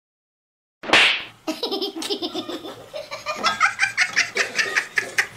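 A person laughing hard in rapid, repeated pulses that climb in pitch, after a sharp noisy burst about a second in.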